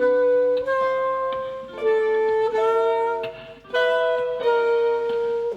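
Saxophone playing a melody of long held notes over acoustic guitar accompaniment in a soul/jazz song.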